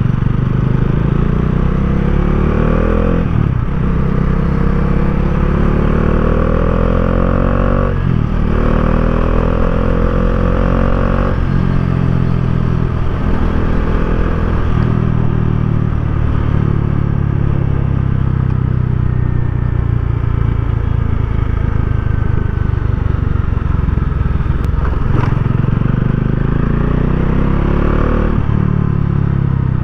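2019 Bajaj Dominar 400's single-cylinder engine and exhaust while riding. It accelerates through the gears, its pitch rising and dropping briefly at each of several gear changes, then runs steadier before rising again near the end.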